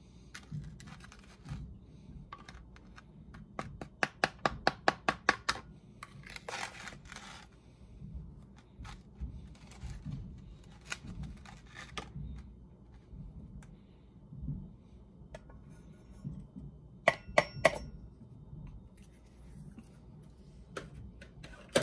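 Ground coffee being scooped and stirred with a plastic coffee scoop in a plastic container: soft scraping and small clicks, with a quick run of about ten sharp taps a few seconds in. Near the end come three sharp taps that ring briefly.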